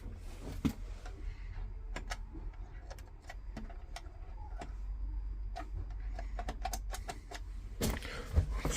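Irregular light clicks and knocks of tools and metal parts being handled while a boiler's internals are taken apart, over a low steady hum, with a louder knock near the end.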